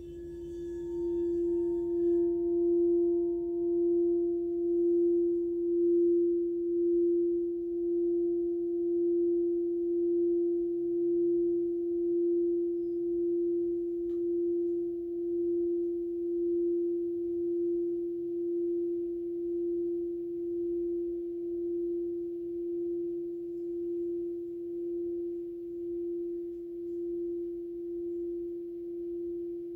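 A sound-bath instrument holds one steady pure ringing tone. It swells in over the first two seconds, then pulses gently about once a second while slowly fading. Fainter higher ringing from an earlier stroke dies away in the first couple of seconds.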